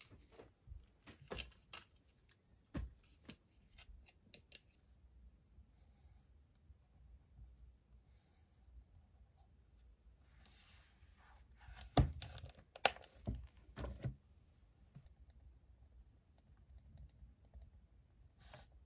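Typing on a laptop keyboard: scattered, fairly quiet keystrokes, with a cluster of louder clacks about twelve to fourteen seconds in.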